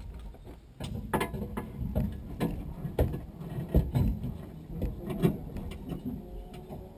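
Irregular knocks and clicks, several a second at times, over a low rumble inside a stationary rally car's cabin.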